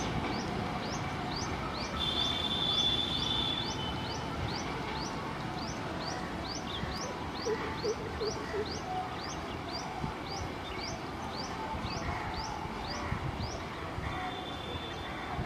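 A bird repeating a short, high, upward chirp about two to three times a second, over the low rumble of a passenger train drawing away along the tracks.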